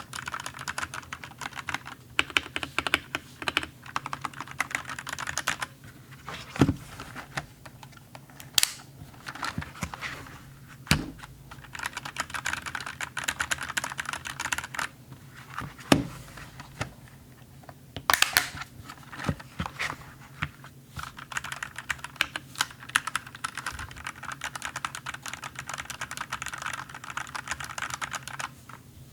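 Typing on a 68% mechanical keyboard with brown switches: a steady run of key clacks, with a few heavier thumps now and then.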